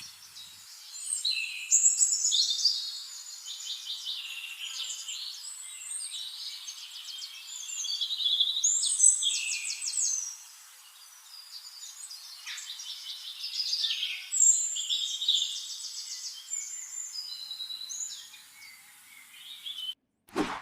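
Small birds singing and chirping: a busy, varied run of high trills and quick chirps. It stops suddenly near the end.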